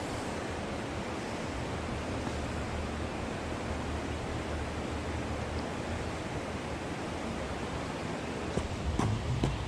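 Steady rushing of river water, an even hiss with no lines or rhythm. A few sharp knocks sound near the end.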